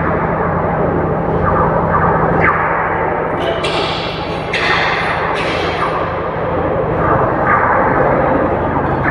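Loud, echoing work noise in a concrete rail tunnel: a steady low machine hum under a constant din, broken about halfway through by a few sudden bangs that ring away.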